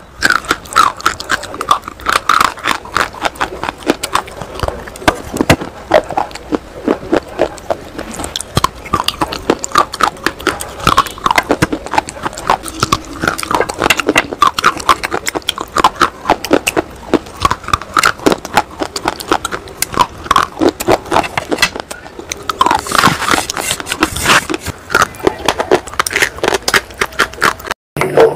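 Close-miked crunching and chewing of dry, brittle clay-like sticks: a dense run of sharp crackling crunches, with a short break near the end.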